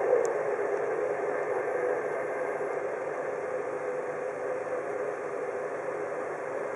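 Boeing 787-9's twin Rolls-Royce Trent 1000 turbofans at takeoff power as the jet climbs away just after lift-off: a steady jet rumble that slowly fades. It is heard through a live webcast's audio.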